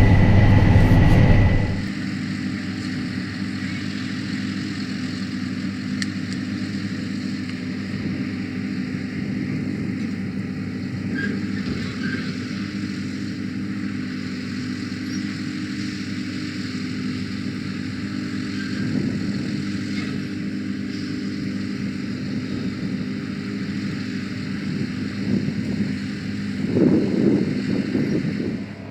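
Combine harvester running steadily while harvesting, a constant engine drone with machinery hiss over it. It is louder for the first couple of seconds, then settles, and swells briefly near the end.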